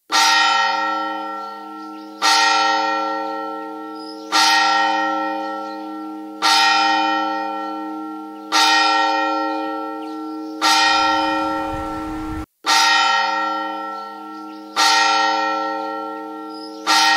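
A single bell tolling slowly: nine strokes about two seconds apart, each ringing out and fading before the next. One stroke about two-thirds through carries a low rumble and cuts off abruptly.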